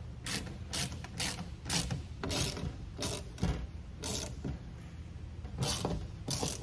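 Hand socket ratchet clicking in short back-and-forth strokes as an acorn nut is tightened onto a bolt, a burst of clicks about every half second with a pause midway.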